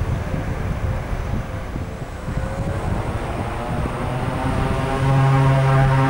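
Beechcraft King Air B200's twin Pratt & Whitney PT6A turboprops powering up for the takeoff roll: a propeller drone that climbs in pitch, then jumps in loudness to a steady buzz about five seconds in. Wind rumbles on the microphone at first.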